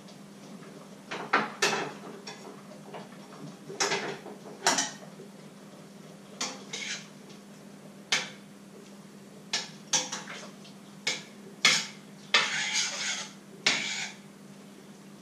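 A cooking utensil knocking and scraping in a pan on a stovetop: irregular clinks and short scrapes, with a longer scraping run a little before the end, over a steady low hum.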